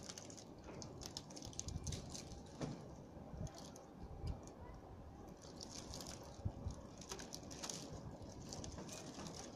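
Faint, irregular clicking and rustling of a clear polycarbonate sheet being handled and stood on end, with a few soft knocks.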